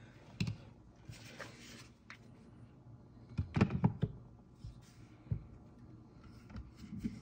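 Handling noises as an air rifle's stock is fitted onto the action: scattered light clicks and knocks of parts meeting, with a cluster of them about halfway through and a brief rubbing sound about a second in.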